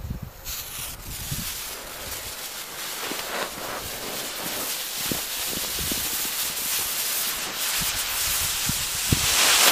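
Burning fuse of a homemade firecracker, a steady hiss with scattered small crackles that grows louder toward the end.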